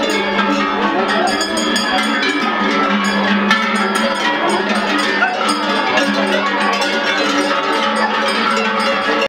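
Many cowbells clanking together on a herd of steers walking along a street, a dense continuous jangle of overlapping bell tones.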